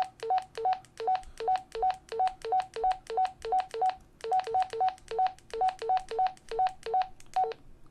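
Baofeng UV-8HX handheld transceiver's key beeps as its buttons are pressed over and over. Each press gives a click and a quick two-note beep, low then higher, about three a second, with a brief pause about four seconds in.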